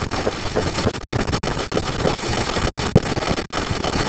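Steady rushing background noise, cut off completely by brief dropouts a few times.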